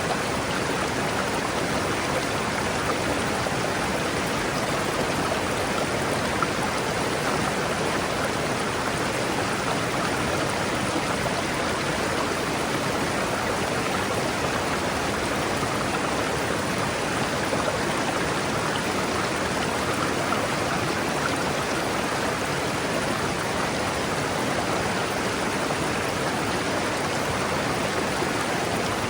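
River water flowing steadily over rocks: an even rushing of running water.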